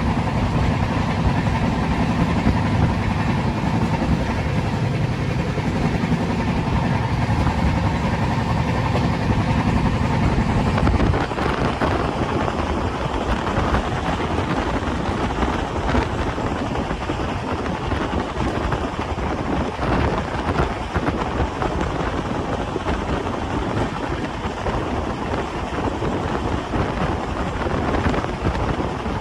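A train running: a steady low rumble, changing about eleven seconds in to a rougher, noisier rush with many small knocks.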